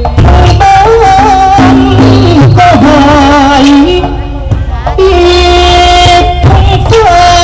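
Likay leading man singing a Thai melody through a microphone, with long wavering held notes that slide from pitch to pitch, over a folk ensemble accompaniment with light percussion.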